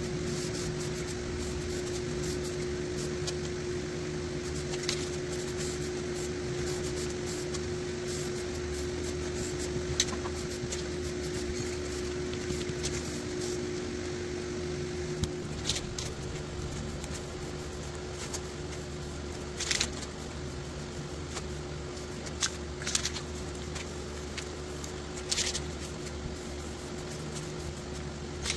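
A steady machine hum, like a fan running, with several short hisses of aerosol spray paint over it in the second half.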